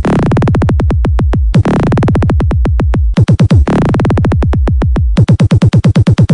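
Electronic dance remix music: a fast stutter of drum-machine hits, about eight a second, with a falling pitch on each hit, trading off with a held heavy bass line.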